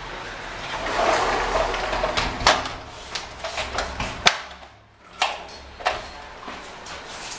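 Rustling handling noise from a handheld camera, with scattered sharp clicks and knocks, the sharpest about four seconds in.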